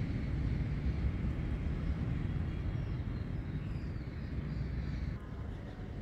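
A steady low rumble of a distant engine.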